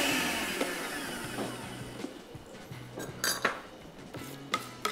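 Samosas deep-frying in hot oil, the sizzle fading out over the first two seconds, followed by a series of light clinks and knocks of kitchen utensils, over soft background music.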